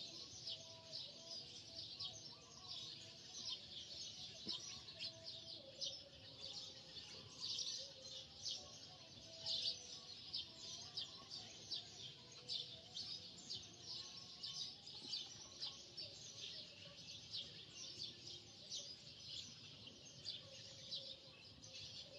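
Many small birds chirping rapidly and continuously, faint, with no break.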